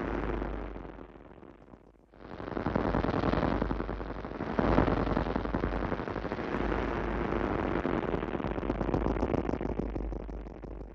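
Noise-heavy music track: a dense wash of distorted, crackling noise. It thins almost to nothing about two seconds in, swells back, and fades out at the very end.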